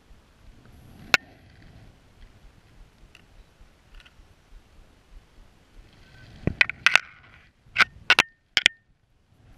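Camera handling noise: sharp clicks and short scrapes close to the microphone, one click about a second in, then a cluster of loud clicks in the second half.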